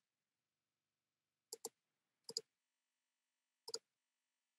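Computer mouse clicks: three quick pairs of clicks, the first two pairs close together and the third about a second later.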